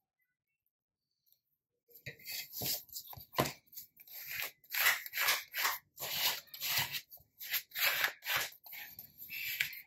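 Small flat plastic burnishing tool scraped back and forth over a freshly glued paper pocket on a journal page, pressing it down: quick scratchy rubbing strokes, two or three a second, starting about two seconds in.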